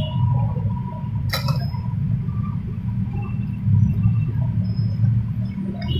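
Steady low rumble of street traffic, with a single sharp tap about a second and a half in as a spoon knocks against a plastic cup while chocolate powder is scooped.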